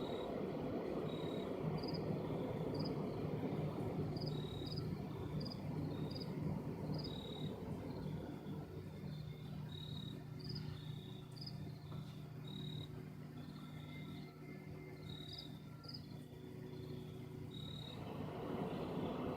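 Insects chirping in short, high notes at irregular intervals over a steady low hum and rumble.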